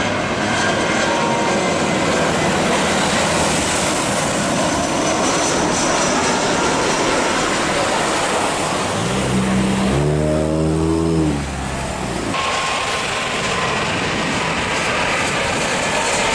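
Jet airliner's engines, a loud steady rushing noise as the plane passes close while coming in to land, with a falling tone about nine to twelve seconds in.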